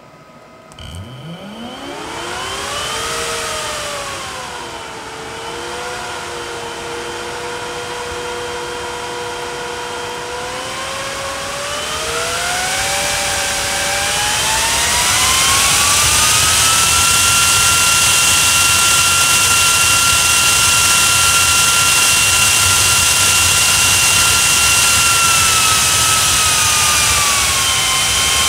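Delta THA1248BE 120 mm 48 V high-speed fan spinning up from a standstill under PWM control. Its whine rises, overshoots and settles at a steady middle speed. It then climbs to a higher speed with a loud rush of air and a high, steady whine, and begins to slow near the end.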